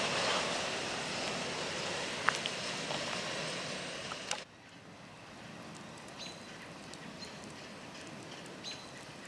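Steady rushing outdoor noise with a few sharp clicks, cut off abruptly by an edit about four seconds in. It gives way to a quieter low rumble with a few short, high squeaks.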